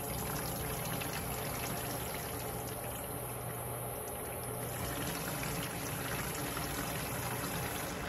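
Water pouring steadily from a plastic watering can onto an orchid's potting media and trickling through the pot into the bucket beneath.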